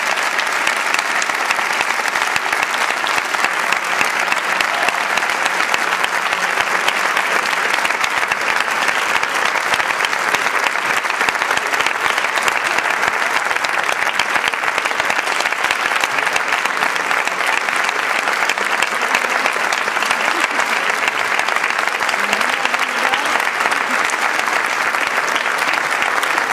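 Audience applauding steadily, a dense, even clapping that holds at the same level throughout.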